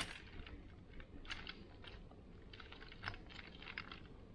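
Soft, irregular crackling and clicking as a rotisserie chicken's roasted skin and meat are pulled apart by hand.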